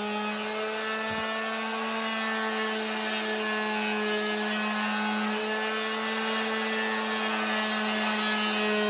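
Electric palm sander running steadily while sanding a wooden staff, a constant motor hum with a rough rubbing hiss over it.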